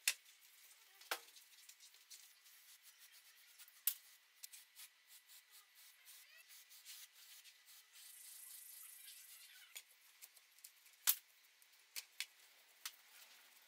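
Faint, scattered sharp clicks and light taps, a few of them louder, with a short hiss about eight seconds in.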